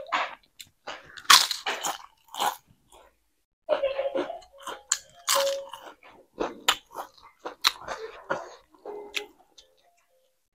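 Close-up chewing and mouth sounds of someone eating rice and spicy vegetable curry: wet smacks and crunches in irregular clusters, with short pauses between mouthfuls.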